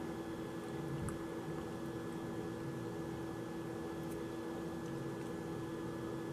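Steady electrical hum with one clear pitch over a soft hiss, like a running computer or appliance in a small room, with a couple of faint ticks.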